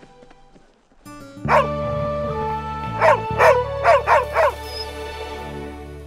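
A rough collie barking, six or so short barks over background music with held chords that starts about a second and a half in.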